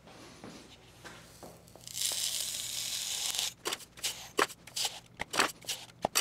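Dry sand poured from a steel cup through a plastic funnel into a steel exhaust tube, a steady hiss for about a second and a half, followed by a run of sharp clicks and taps. The tube is being filled with sand to pack it for hand-bending.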